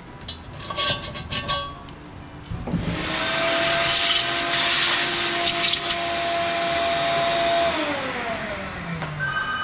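A few metal clicks as a fixture is taken off the engine block, then an electric vacuum motor starts and runs with a steady whine and hiss for about five seconds before winding down in pitch as it is switched off.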